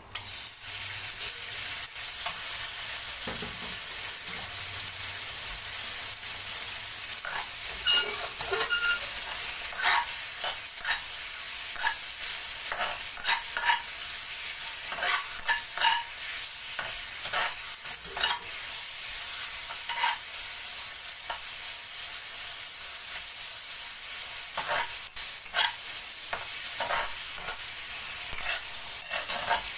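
Marinated sliced pork and garlic sizzling in hot oil in a honeycomb-textured steel pan, the meat freshly added. A metal spatula scrapes and taps against the pan as it is stirred, the taps coming often from about seven seconds in.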